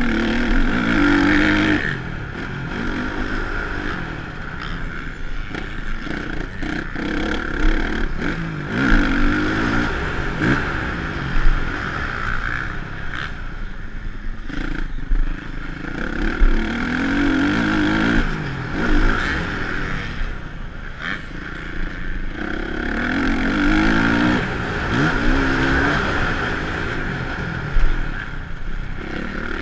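Honda motocross bike's engine revving up and falling back over and over as the rider works the throttle and shifts through the gears on a dirt track. Rushing noise and sharp knocks and clatter from the bike over the bumps run along with it.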